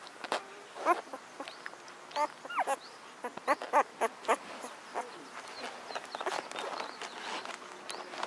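Newborn basset hound puppies squeaking and whining as they squirm together in a heap: a series of short, high cries, thickest in the middle seconds.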